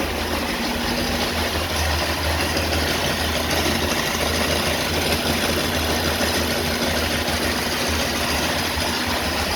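Honda Bros 160 motorcycle's single-cylinder engine idling steadily with an ugly mechanical noise, which the mechanic traces to play in a worn balancer-shaft bearing.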